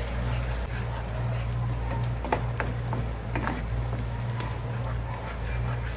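Ground onion-tomato masala paste sizzling in hot oil in a pan as a spatula stirs it, with a few sharp scrapes and taps of the spatula against the pan a little past the middle. A steady low hum runs underneath.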